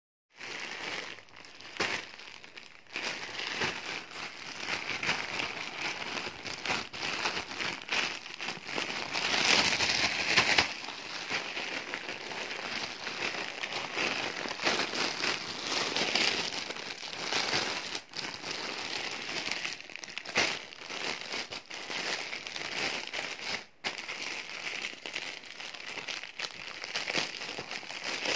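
Plastic courier mailer bag and the clear plastic sleeve inside it crinkling and rustling as hands handle and open them, with a spell of louder crackling about ten seconds in.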